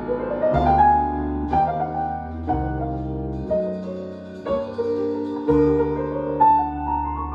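Solo piano music, with a new chord and low bass note struck about once a second.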